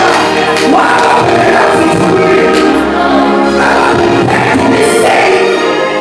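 Gospel worship music: voices singing together over instrumental accompaniment, steady and loud.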